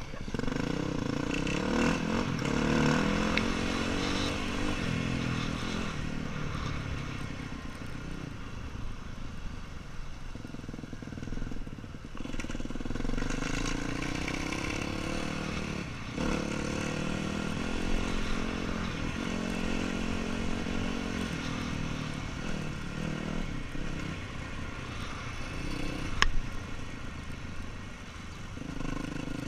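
Yamaha WR250F's four-stroke single-cylinder engine being ridden, revving up and down repeatedly with its pitch rising and falling with the throttle. A single sharp knock near the end.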